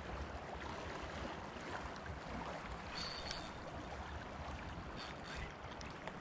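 Steady rush of flowing river water, with brief high-pitched squeaks about three seconds in and again around five seconds.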